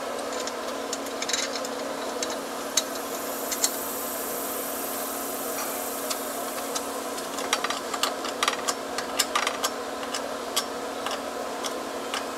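Scattered light clicks and taps from handling and fastening a lantern mounting bracket against a wall, more frequent in the second half, over a steady background hum.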